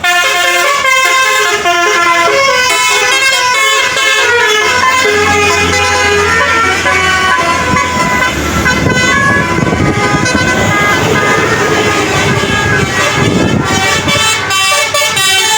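Bus musical air horn (telolet-style) playing a quick tune of changing notes. A low rumble swells under it in the second half as the bus passes.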